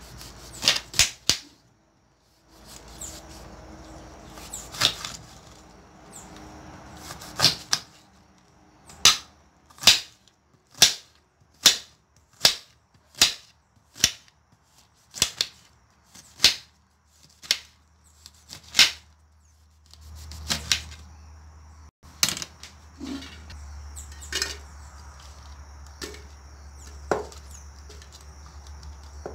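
Kitchen knife chopping fruit and vegetables into cubes on a cutting board: sharp chops, a steady run of about a dozen at roughly one a second through the middle, more scattered before and after.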